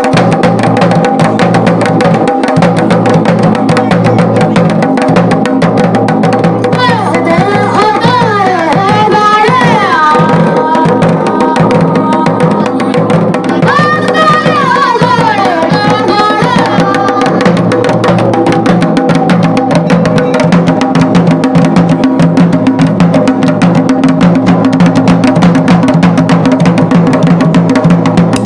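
Garhwali dhol played in a fast, unbroken roll of dense, even strokes over steady sustained tones. Twice a gliding melodic line rises above the drumming for a few seconds.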